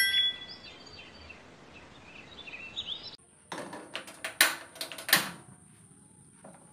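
A short ringing chime with faint chirping under an intro card. After a cut, a run of clicks and metal knocks from pans and a gas stove being handled and switched on, the loudest two about four and a half and five seconds in.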